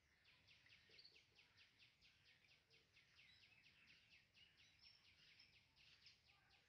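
Faint, rapid and even run of high chirps from a bird, about seven a second.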